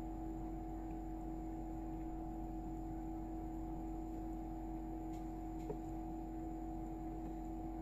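Steady hum of a chick incubator's fan and motor, an even drone with a constant low tone and a fainter higher one.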